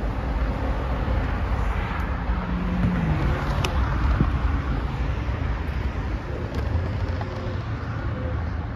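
Steady rumble of wind buffeting the microphone, mixed with road traffic noise from the highway below, while riding across an overpass. A brief falling whine comes about two and a half seconds in, and a single sharp click a second later.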